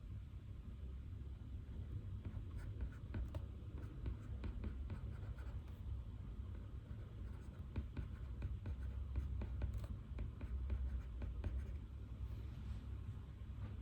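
Pen writing on paper: a steady run of small scratches and light taps over a low, constant room rumble.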